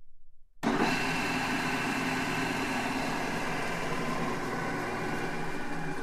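Large drill press running: a loud, steady machine whine with several fixed tones over a broad hiss. It comes in abruptly about half a second in, after a faint low hum.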